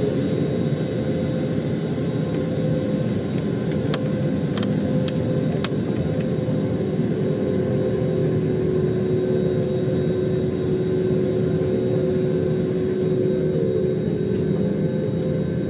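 Steady engine hum and cabin rumble of a jet airliner taxiing, heard from inside the cabin, with a few light clicks about four to six seconds in.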